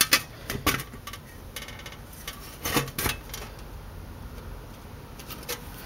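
Scattered sharp clicks and light metallic clinks from handling a homemade stainless-steel and brass helmet, the loudest right at the start, with a quick faint rattle about a second and a half in and a few more knocks later.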